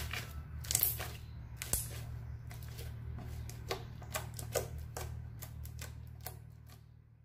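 Thick, mixed slime being kneaded and pressed by hand, giving off irregular sticky clicks and pops, over a steady low hum; it fades out near the end.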